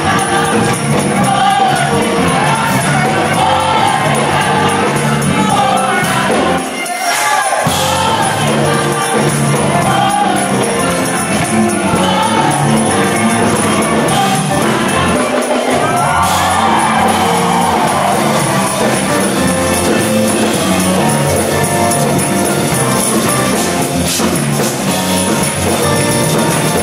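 A large mixed choir singing an upbeat Caribbean-style gospel song, with organ and keyboard accompaniment and jingling percussion. The low accompaniment drops out briefly about seven seconds in.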